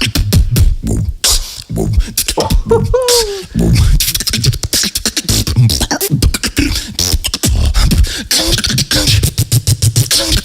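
Beatboxing: a fast run of percussive mouth sounds over a deep bass tone, with a short pitched vocal glide falling in pitch about three seconds in.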